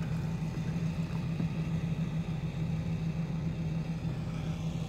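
Truck engine idling: a steady, unchanging low hum.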